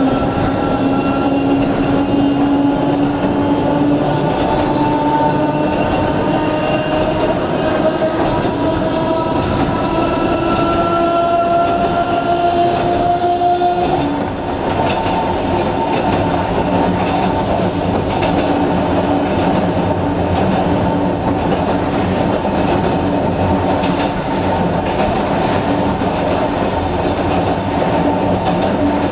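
Electric train's nose-suspended traction motors whining, heard from inside the car, the whine climbing steadily in pitch as the train gathers speed. About halfway through the whine stops abruptly, and the train runs on with a steady rumble and wheels clicking over rail joints.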